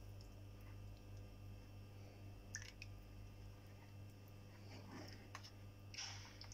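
A few faint, brief squelches and soft clicks from a hand mixing thick dosa batter in a plastic bowl, over a steady low hum.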